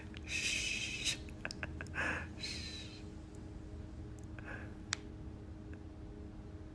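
A sleeping dog breathing noisily through its nose: three or four short snorting breaths in the first three seconds, then a fainter breath and a couple of light clicks.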